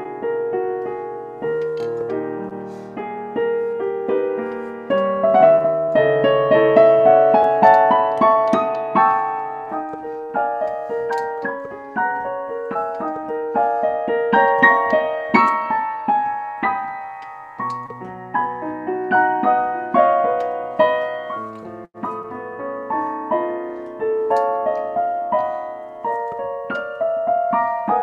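Digital piano played solo: a flowing, many-noted classical piece with both hands, the notes continually changing, with a momentary break about three-quarters of the way through.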